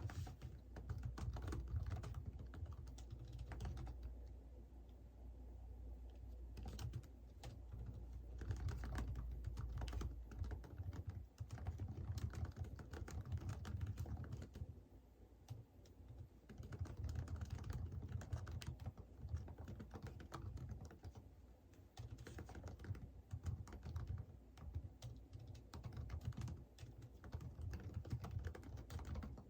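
Computer keyboard typing in quick runs of key clicks, broken by short pauses, over a faint low hum that weakens after about ten seconds.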